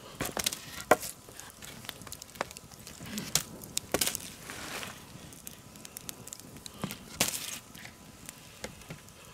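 Wood campfire crackling, with sharp irregular pops from the burning logs; the loudest pop comes about a second in.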